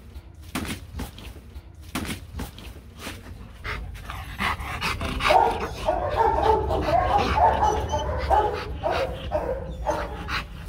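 Rottweiler barking in a rapid run of short barks from about five seconds in. Before that, sharp separate knocks as it mouths and drops a hard plastic toy on concrete.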